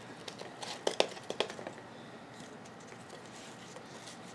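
Hands handling a plastic nursery pot and potting soil: a short run of small clicks, taps and crinkles about a second in, then quiet room tone.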